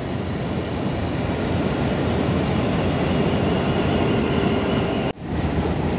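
Diesel locomotive GU 49012's engine running steadily, a dense rumble with a faint steady whine over it; the sound drops out abruptly about five seconds in.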